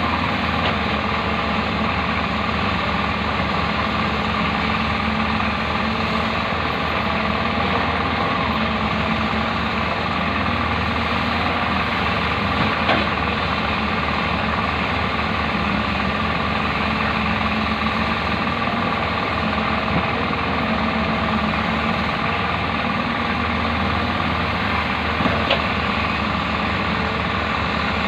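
Hyundai backhoe's diesel engine running steadily while it digs, with two brief knocks, one about halfway through and one near the end.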